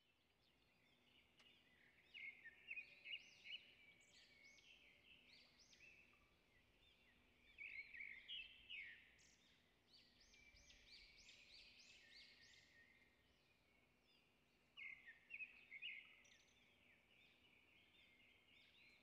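Faint birdsong: small birds chirping in quick runs of high, swooping notes, coming in several spells with short gaps between, over a faint steady low hum.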